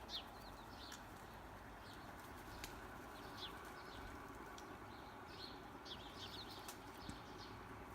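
Faint, scattered short bird chirps, high-pitched and irregular, over a steady low background noise.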